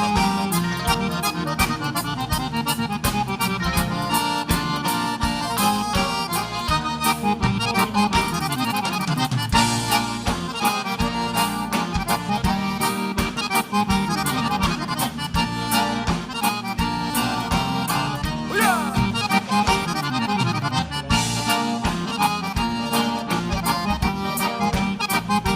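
Live gaúcho dance music played by a band: an instrumental passage led by accordion, with guitar and bass over a steady dance beat.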